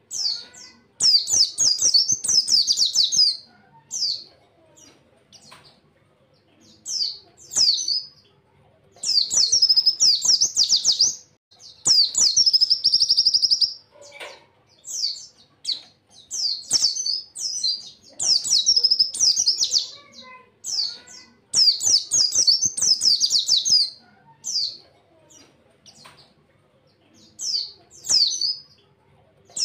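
White-eye (pleci) singing in rapid, high-pitched trilling phrases of one to two seconds, with short pauses between them. About twelve seconds in comes a longer, even trill.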